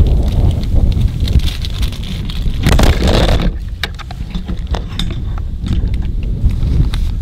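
Strong wind buffeting the microphone, a heavy low rumble throughout. About three seconds in, a loud rushing burst as the gusting wind knocks the camera over, followed by scattered knocks and clicks.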